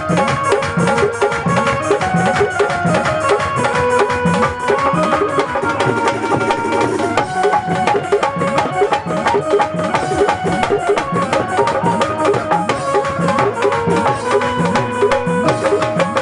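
Instrumental interlude of a Hindi devotional bhajan: a steady hand-drum rhythm with clicking percussion under a sustained melody line.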